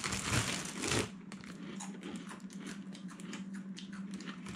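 A person chewing a mouthful of cereal and milk, a run of small irregular crunches, over a steady low hum.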